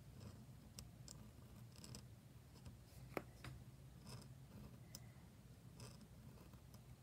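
Faint scratching of a Leonard Principal dip nib, fitted in a Jinhao fountain pen, as it draws short strokes across paper, with one sharp click about three seconds in.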